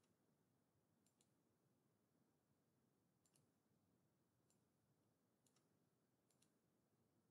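Near silence with faint computer mouse clicks, about five of them, most heard as a quick press-and-release pair.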